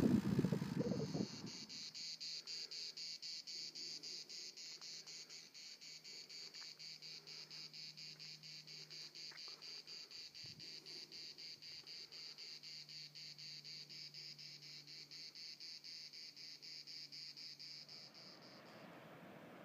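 A rush of wind noise from riding cuts off about a second in; then an insect sings a continuous high-pitched, rapidly pulsing trill that stops near the end.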